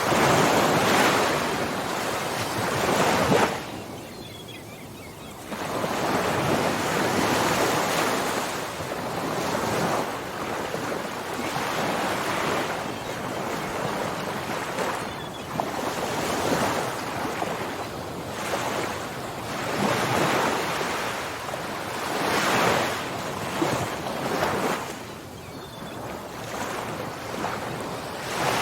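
Ocean surf breaking and washing up the shore in repeated swells, loudest in the first few seconds, with a brief lull about four seconds in.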